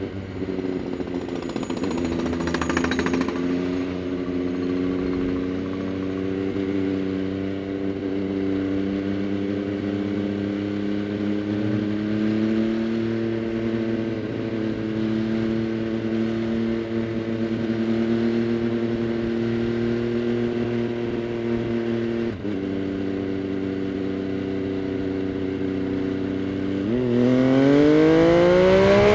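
MV Agusta Dragster 800 RR three-cylinder engine through a Fresco Trio Corse exhaust with dB-killer, running at a steady cruising speed. Its pitch drifts only a little until near the end, when the throttle opens and the engine note rises in pitch and gets louder as the bike accelerates.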